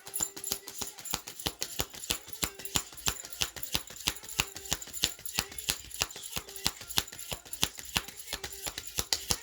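A deck of tarot cards being shuffled by hand: a quick, irregular run of crisp card clicks and flicks, several a second.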